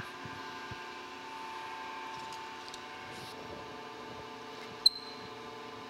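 Faint steady hum, then one sharp metallic clink about five seconds in that rings briefly: a steel gear cutter knocking against a turned steel arbor as it is pushed on.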